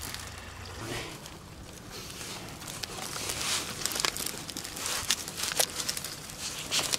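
Rustling and crackling of dry stalks and loose soil being disturbed, with scattered sharp snaps and clicks that grow busier in the second half.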